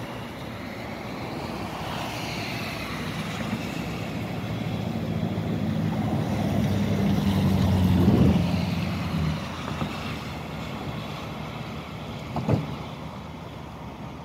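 Diesel shunting locomotive's engine running as it creeps forward at low speed, its hum building to its loudest about eight seconds in and then easing off. A single short knock sounds about twelve and a half seconds in.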